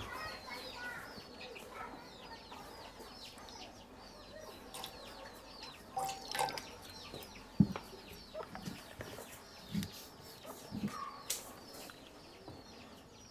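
Birds chirping over and over in short, high, falling notes, with a few soft knocks in the middle stretch, the sharpest about two-thirds of the way in.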